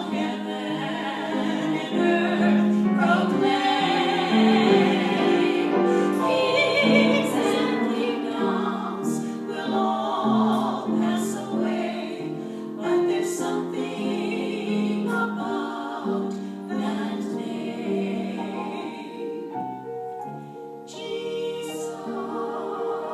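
Choral music: singing voices holding long notes with vibrato over sustained instrumental accompaniment.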